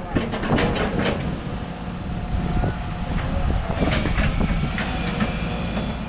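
Backhoe running steadily under the load of lifting a fishing boat, with several metal clanks in the first second and thin, steady squeals of metal and hydraulics later on.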